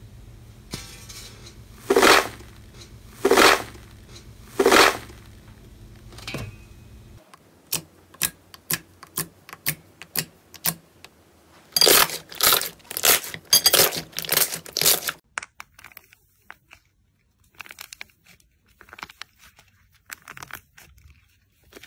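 Hands playing with slime and clay, with no voice. First come three loud squishes of a white foam slime, then a run of sharp clicks as hands press into a blue slime. A dense burst of crackling follows, and then sparser crackles as a dried pink clay shell cracks.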